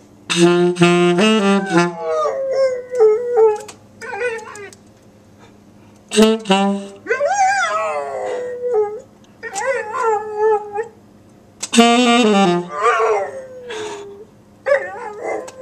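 A saxophone plays a few short, low, steady notes three times, and after each phrase a dog answers with wavering, up-and-down howls and whines.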